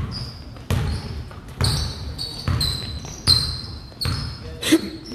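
A basketball being dribbled on a hard court, with sharp bounces a little under a second apart.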